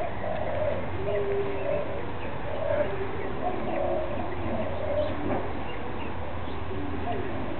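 Doves cooing: short, low, repeated notes at a couple of pitches, thinning out after about five seconds, over a steady low hum.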